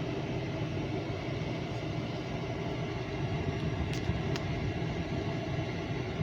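A train's steady low rumble, with two short clicks about four seconds in.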